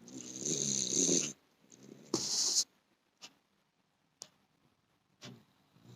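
A pet snoring: a rough, buzzing in-breath lasting about a second, then a shorter hissing out-breath about two seconds in, followed by a few faint clicks before the next breath begins near the end.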